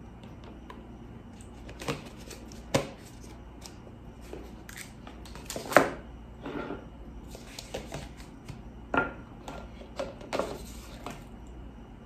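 Dishes and food containers being handled on a table: scattered knocks and clatters, the loudest about six seconds in.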